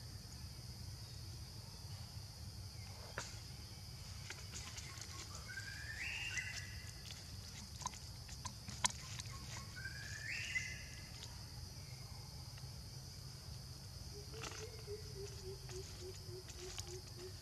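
Forest ambience: a steady high insect drone with a low background rumble, two short rising calls, and a few scattered sharp clicks. About 14 seconds in comes a run of low hooting notes, roughly four a second, slowly falling in pitch.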